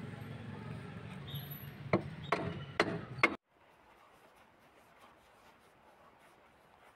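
Four sharp clicks about two seconds in, over steady background noise. The sound then cuts off suddenly to a faint steady hiss.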